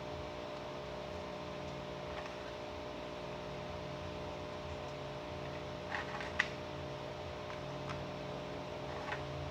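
Steady electrical hum with a faint hiss, and a few light clicks or taps, the sharpest about six and a half seconds in.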